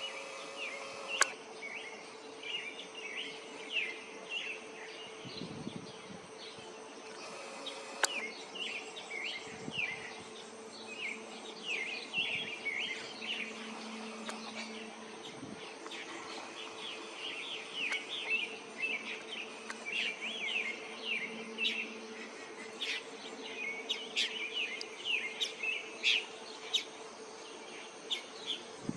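Hummingbirds at a feeder: a dense run of rapid, high twittering chirps with a buzz of wings, stronger in the middle, over a steady low hum. Two sharp clicks come about a second in and again near eight seconds.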